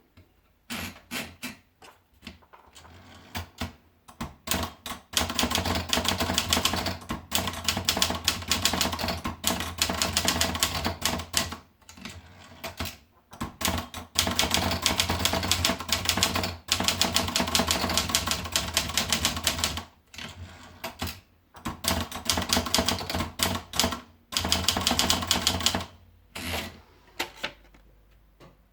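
Olivetti Lettera 25 portable manual typewriter being typed on: rapid runs of key strikes, type bars clacking against the platen, in bursts of a few seconds with short pauses between them.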